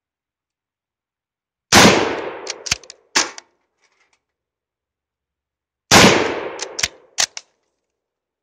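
Two rifle shots from an Ishapore No. 1 Mk III Lee-Enfield in .303, about four seconds apart, each ringing out for about a second. Each shot is followed by a few quick metallic clicks as the bolt is worked to eject the case and chamber the next round.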